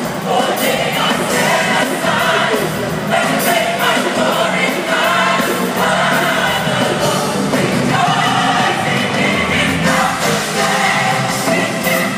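Gospel church choir singing together, heard from the audience in a large hall.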